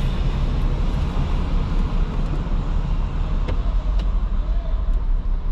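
Car idling while stopped, a steady low rumble heard from inside the cabin, with a couple of faint clicks about three and a half and four seconds in.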